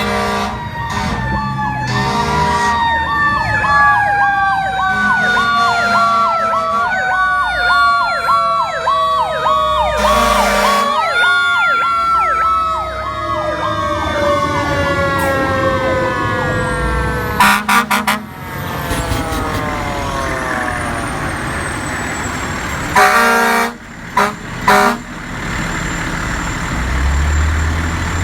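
Emergency vehicle's air horns blasting several times over its sirens: one siren warbling about twice a second, and another tone sliding slowly down in pitch, stepping back up a few times. Near the end the air horns give a few short blasts.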